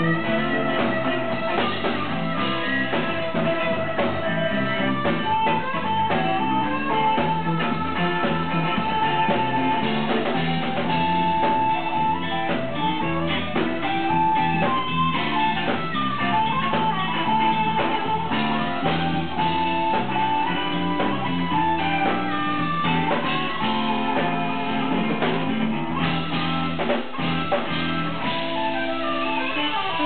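Live blues-rock band playing an instrumental stretch: a harmonica plays long held notes over electric guitars, bass and drums.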